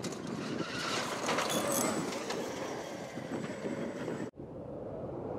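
Electric off-road race buggy driving hard over loose dirt: a high electric motor whine over the noise of tyres churning dirt and gravel. About four seconds in it cuts off sharply to quieter steady noise.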